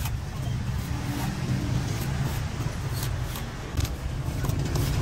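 Meat cleaver chopping and shaving the husk of a young green coconut, several short sharp chops, over a steady low rumble.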